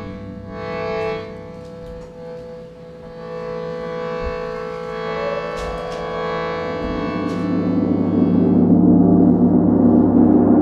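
Large gong sounding, a dense shimmering drone of many sustained tones that builds louder in the second half. A few light knocks come through it.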